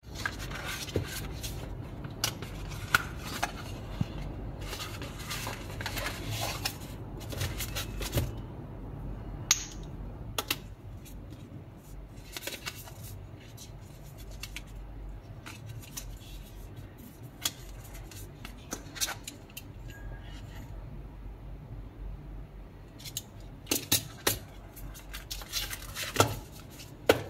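Cardboard box and stiff paper flash cards being handled: a cardboard box lid and flaps opened, then a stack of cards slid out and leafed through, with scattered clicks, taps and rustles of card against card and the tabletop. The handling is busiest in the first several seconds and again near the end, with fewer sounds in between.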